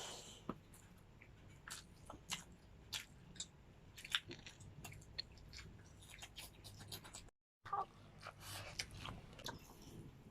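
Faint, close-up chewing and biting of food, with many short, crisp crunches scattered irregularly. The sound cuts out completely for a moment about seven seconds in.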